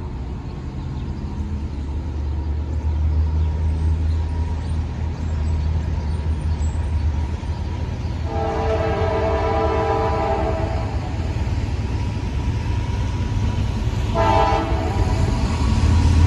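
Approaching diesel freight train led by a CSX locomotive: a low engine rumble that builds as it nears, with the lead locomotive's air horn sounding a several-note chord in a long blast about eight seconds in and a short blast near fourteen seconds.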